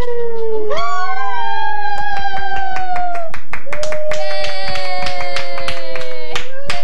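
Family clapping and cheering with long, held "yaaay" calls as cake candles are blown out; the clapping starts about two seconds in and stops just before the end.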